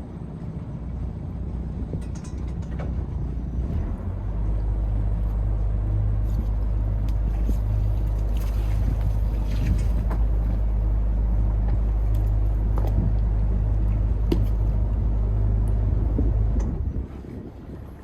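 A sailboat's inboard engine running in gear and brought up to a steady higher throttle about four seconds in, working against the spring line, then eased back near the end. A few light knocks are heard over it.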